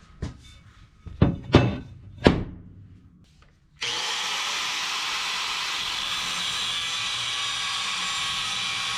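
A few sharp metallic knocks, then from about four seconds in a steady, loud, hissing power tool working 3/8-inch steel plate into engine mounts.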